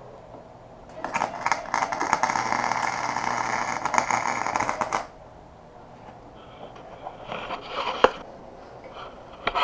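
Electric arc welding: a steady crackling and sizzling burst about four seconds long that starts about a second in and cuts off sharply when the arc stops. Softer scraping and handling noises follow, with a sharp click near the end.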